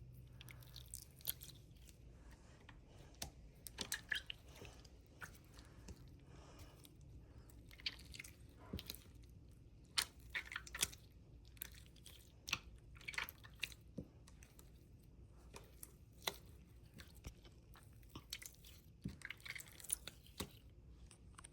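Slime being squeezed and kneaded by hand, giving irregular sticky pops and crackles, some in quick clusters.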